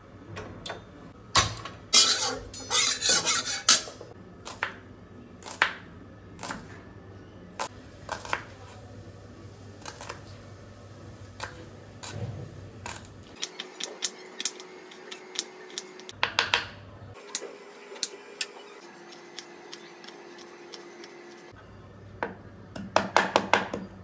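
Kitchen prep: a knife tapping on a chopping board in quick runs, among scattered clinks and knocks of utensils and pots.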